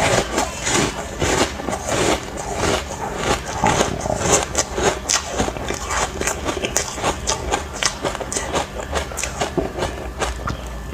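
Ice chunks being bitten and crunched between the teeth close to the microphone, a dense irregular run of sharp cracks and crackles.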